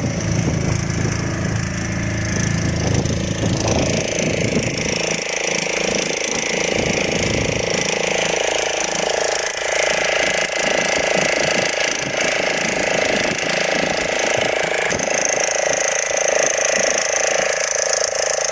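A fishing boat's motor running steadily, its deep low note dropping away about four seconds in.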